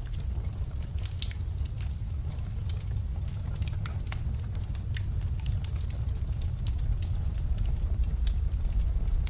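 Wood fire crackling in a fireplace, scattered sharp pops and snaps over a steady low rumble of storm wind.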